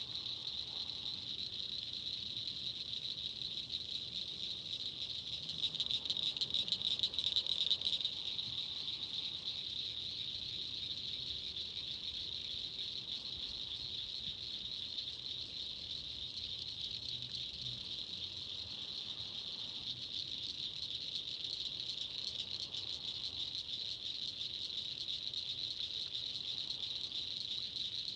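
Steady high-pitched chorus of insects trilling continuously, a little louder around six to eight seconds in.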